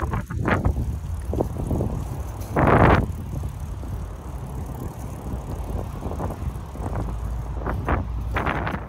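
Riding noise from an old mountain bike rolling over pavement: a steady low rumble with wind buffeting the microphone and scattered clicks and knocks, and a louder rush about three seconds in.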